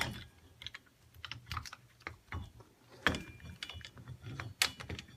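Irregular small metallic clicks and clinks of pliers working against a brake caliper's pad retaining spring and pads, with a sharper click about three seconds in.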